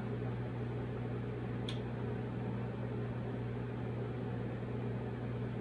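A steady low hum with an even hiss of room noise, and one short click about a third of the way through.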